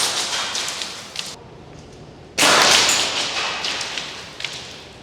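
ASG Storm D-Tonator airsoft impact gas grenade going off: two sharp blasts of gas venting, each fading into a hiss over about a second and a half. The second comes about two and a half seconds in, and a few small clicks follow.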